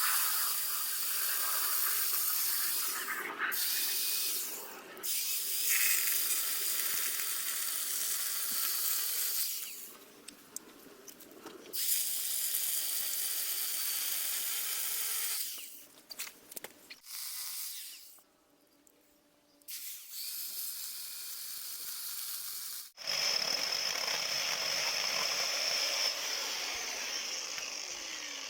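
Electric chainsaw running in several bursts of a few seconds each, with short pauses between them, and a steady high whine in the last burst.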